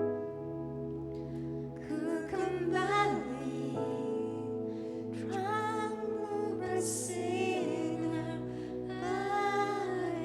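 Slow worship music: a voice sings long phrases over steadily held chords.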